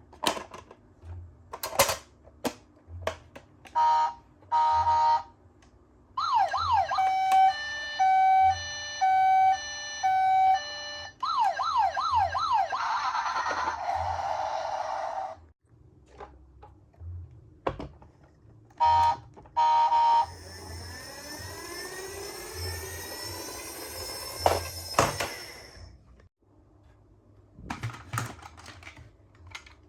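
A toy ambulance's electronic siren: after a few plastic clicks, two short beeps, then a rising-falling wail that turns into an alternating two-tone hi-lo, then a fast yelp. Later two more beeps and a hissing stretch with falling sweeps, with scattered clicks and knocks of the plastic toys near the end.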